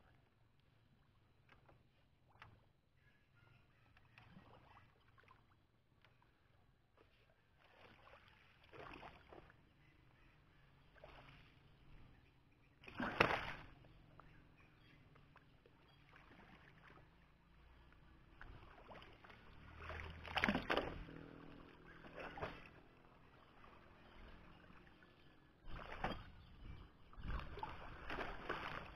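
Bamboo pole being dipped and pushed through shallow water to move a bamboo raft, with irregular splashes, sloshing and knocks; the loudest splash comes a little before halfway, with more clustered past the middle and near the end.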